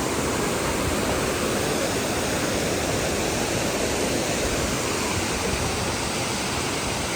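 A waterfall, water pouring and crashing in a steady, unbroken rush.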